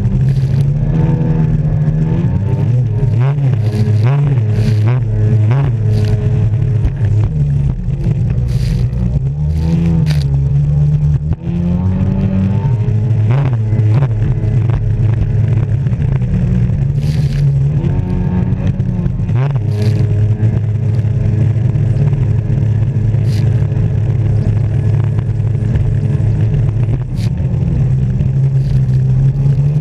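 Jet ski engine running hard, its pitch rising and falling as the throttle changes. Sharp slaps of the hull hitting the chop are heard throughout.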